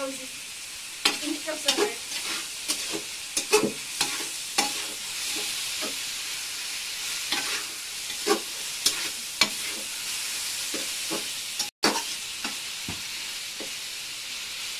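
Metal spatula stirring and scraping chopped tomatoes frying in oil in a metal pot over a wood fire: irregular clinks and scrapes of the spatula against the pot over a steady sizzle.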